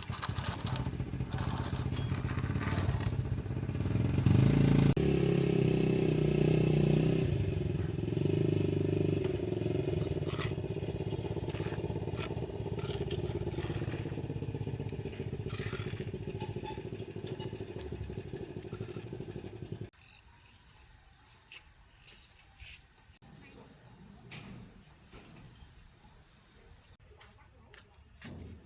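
A small engine running, its pitch drifting up and down, for about twenty seconds. It cuts off abruptly, and a quieter stretch with a steady high-pitched whine follows.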